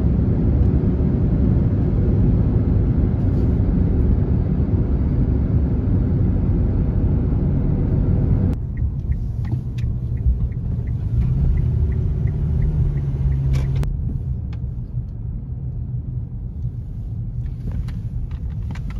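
Car on the highway, with loud road and wind rumble. About eight seconds in this cuts to a quieter in-cabin hum as the car slows into a parking lot, with a light ticking about three times a second for a few seconds, the turn signal.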